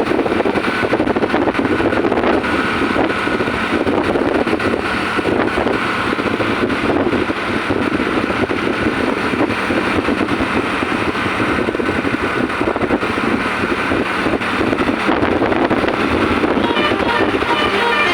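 Steady road noise of vehicles on the move, an even rushing engine-and-tyre sound. Music comes in near the end.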